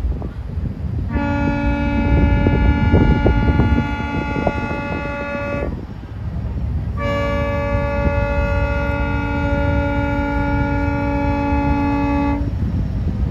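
Ferry boat's horn sounding two long, steady blasts, each about five seconds, with a short gap between them.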